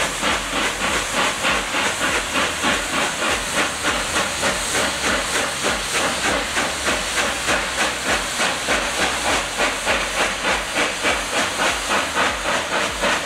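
Cumbres & Toltec narrow-gauge steam locomotive No. 489, a K-36 2-8-2, working under steam, its exhaust chuffing in a steady rapid beat of about four a second over a continuous hiss.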